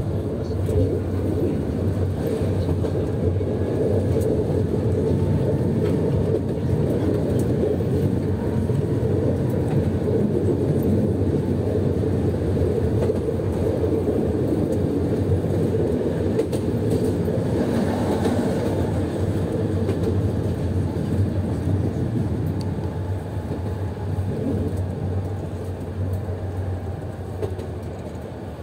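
Tram running along its track, heard from inside the driver's cab: a steady, loud rumble of wheels on rails and running gear. It grows quieter briefly near the end.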